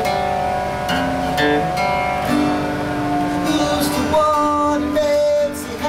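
Background music led by strummed guitar, with held notes over the strums.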